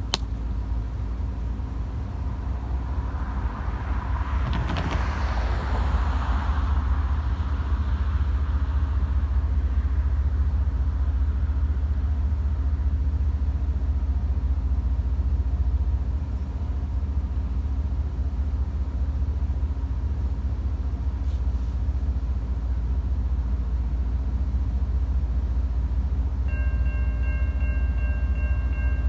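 A steady low rumble, with a road vehicle passing about four to seven seconds in. A few seconds before the end the grade crossing's warning bell starts ringing, a steady multi-tone ring that signals an approaching train.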